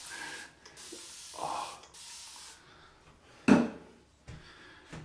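Bathroom basin tap running water, a steady hiss that stops after about two and a half seconds, followed by a single brief loud thump about a second later.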